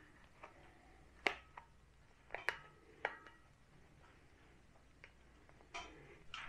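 A few light metallic clicks and clinks, some ringing briefly, as a spiral retaining ring is worked onto a rubber boot on a tie rod end. The loudest click comes about a second in.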